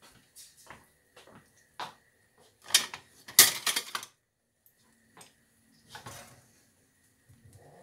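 Kitchen utensils and dishes clattering on a counter: a string of light clicks and knocks, with the loudest clatter about three seconds in and a few softer knocks near the end.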